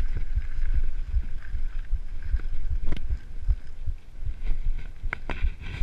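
Mountain bike ridden fast down a rough dirt trail, heard from a handlebar-mounted camera: an irregular run of low thumps and rumble as the bike and mount jolt over the bumps, with a couple of sharp rattling knocks about three and five seconds in.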